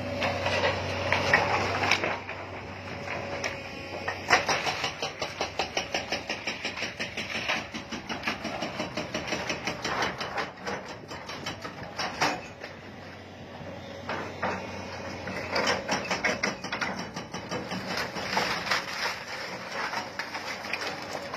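Excavators demolishing a concrete-frame building: engine running under the clatter and cracking of wooden formwork boards and debris, with sharp knocks throughout, the loudest about four and twelve seconds in, and a fast, regular run of knocks in the middle.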